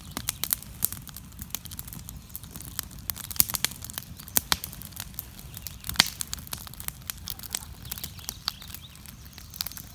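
Wood fire crackling: irregular sharp pops and snaps, several a second, over a low rumble.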